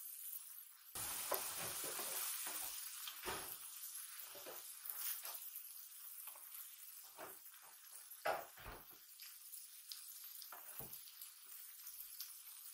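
Okonomiyaki and yakisoba noodles sizzling on an electric griddle. The sizzle gets louder about a second in, with scattered soft clicks and taps of the noodles and utensils being handled on the plate.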